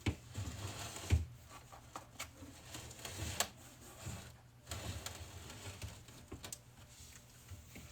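Drinks being taken out of a refrigerator and set down: scattered clicks, knocks and rustling, with a few dull thumps.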